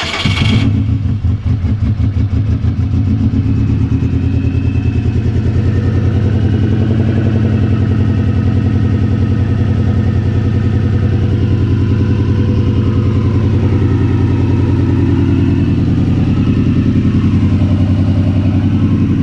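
A 2002 Subaru WRX's turbocharged flat-four engine catches right at the start and settles into a steady, pulsing idle. It is running rough and misfiring, a fault the owner traces to a failing idle air control valve.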